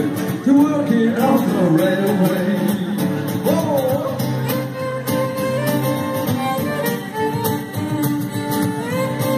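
An Irish folk band playing live: strummed acoustic guitar under a gliding, held melody line, with no sung words.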